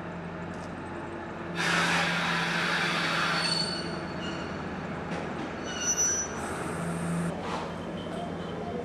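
A passenger train with a red ÖBB 2062 diesel shunting locomotive running at low speed, its engine a steady low hum. A loud hiss comes in about one and a half seconds in and lasts about two seconds, and short high-pitched squeals from the wheels or brakes follow, the sharpest about six seconds in.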